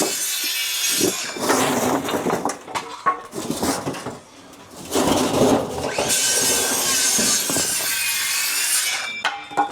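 Shovel scraping and scooping through soil and broken brick, in several long rasping strokes, the longest near the end.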